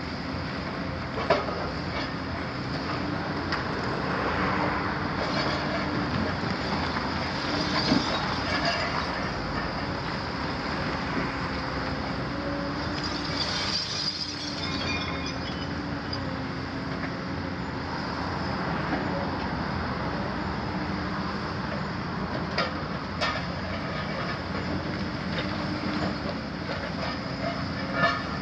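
Hitachi 250 long-front demolition excavator's engine and hydraulics running steadily as its demolition grab tears at the top of a masonry wall. Now and then there are sharp knocks of concrete and debris breaking off and falling, the loudest near the end.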